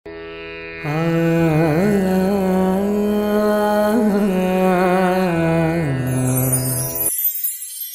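Logo intro music in an Indian classical style: an ornamented, wavering melody over a steady drone. It cuts off abruptly about seven seconds in, leaving a high, sparkling shimmer.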